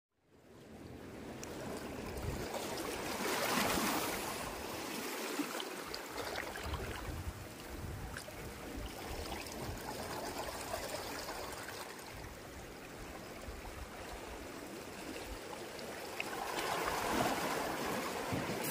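Small waves lapping and splashing against a rocky lakeshore, a steady watery wash that swells twice, a few seconds in and again near the end.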